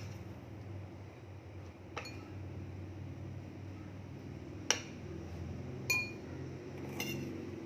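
Four light clinks of kitchen utensils and dishes, the loudest a little past halfway and another just after it ringing briefly, over a low steady hum.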